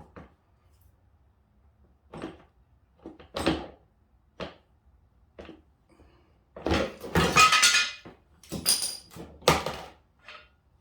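A series of sharp metal knocks and clanks, scattered at first and then louder and closer together in the last few seconds, some ringing briefly like struck metal: fork tube parts being knocked apart.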